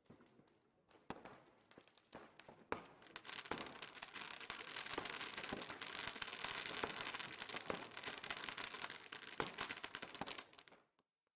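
Fireworks: a few scattered pops, then from about three seconds in a dense crackling with louder pops through it. It cuts off suddenly near the end.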